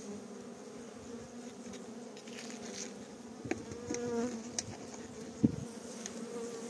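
Honey bees buzzing in a steady, dense hum over the open top of a hive. A few light clicks are heard, and one sharp knock about five and a half seconds in.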